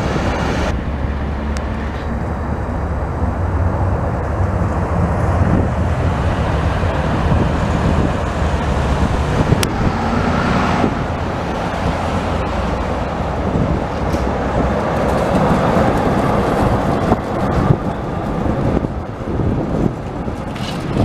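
City street traffic with Vienna trams running on street track among passing cars, a steady low rumble. Near the end a red high-floor tram passes close by.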